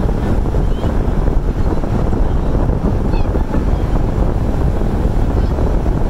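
Steady, loud roar of rushing water, as from a nearby waterfall or cascade, heavy in the low end and even throughout.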